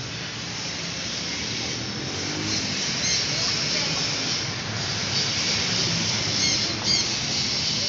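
Street ambience with steady traffic noise and faint voices of passers-by, and a few short high chirps in the second half.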